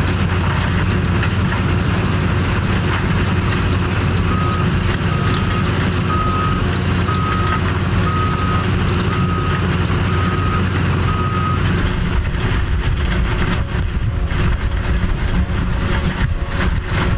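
A heavy machine's diesel engine running steadily, with a back-up alarm beeping about eight times, roughly once a second, while the machine reverses.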